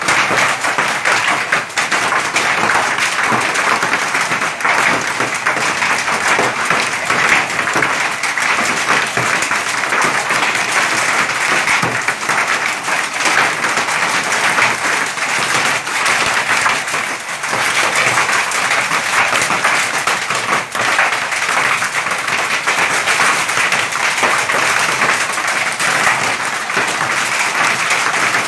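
Hailstorm: a dense, steady clatter of countless hailstones and rain pelting the ground and nearby surfaces.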